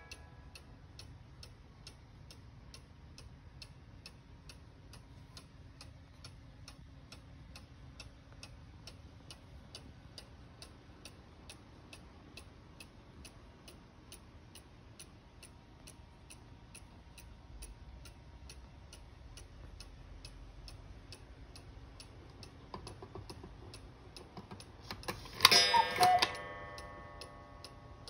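Hönes cuckoo clock's mechanical movement ticking steadily, an even pendulum beat from a movement freshly cleaned and oiled. Near the end, a brief loud two-part sound breaks in.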